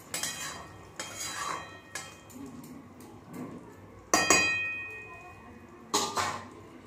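Cooking spatula and metal ladle knocking and scraping against a metal kadai while a curry is stirred: a handful of separate clinks, the loudest about four seconds in, with a brief metallic ring.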